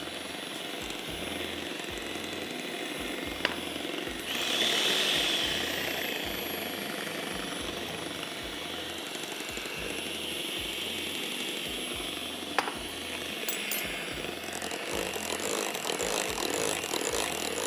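Electric hand mixer running on a low setting, its beaters churning cake batter in a glass bowl. The whirr grows louder for a couple of seconds about four seconds in, with two sharp ticks along the way.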